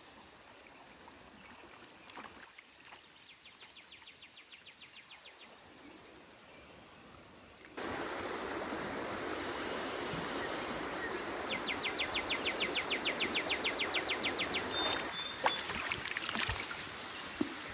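Shallow trout stream running over gravel, much louder from about eight seconds in. Twice a rapid run of high ticks lasts a few seconds, and near the end a trout splashes sharply at the surface.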